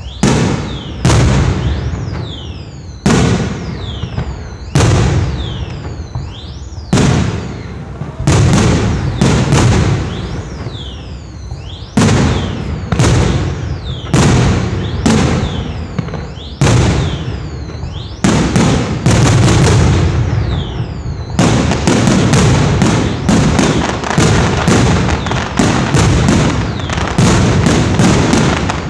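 Fireworks display: aerial shells bursting with sharp bangs every second or two, with falling whistles between them. About two-thirds of the way in, the bangs turn into a rapid barrage of several a second.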